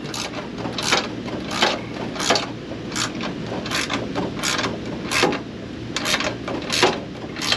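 Hand ratchet tightening a bolt on a newly fitted exhaust: short rasping ratchet strokes, about three every two seconds, with a faint steady hum underneath.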